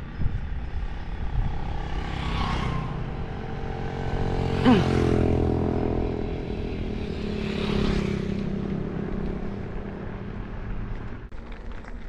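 Wind rushing over the microphone of a moving bicycle, while motorcycles pass three times, about 2.5, 5 and 8 seconds in. Each pass swells and fades, and the engine pitch drops sharply as the second one goes by.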